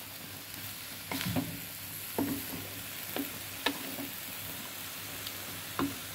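Long beans and tempeh sizzling in a wok as a wooden spatula stirs them, with about five sharp knocks of the spatula against the pan.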